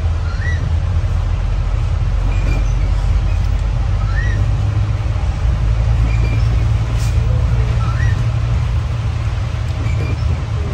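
Steady low rumble of road traffic under an even hiss, with a short rising chirp repeating about every four seconds.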